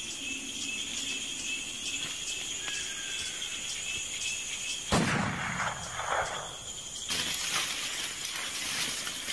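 Rainforest insects calling in steady high tones, one of them pulsing, with a single sudden sound about five seconds in.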